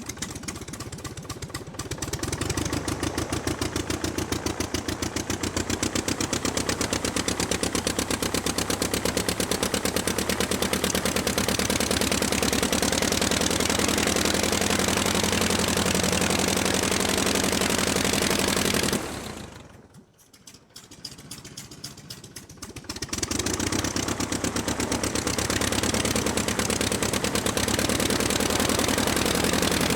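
Aircraft engine running with a rapid, even firing beat. About 19 seconds in it drops away almost to nothing, comes back weakly with a few spaced pulses, and is running fully again about 23 seconds in.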